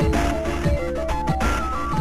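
Background electronic music: a quick melody of short stepped notes over a steady drum beat.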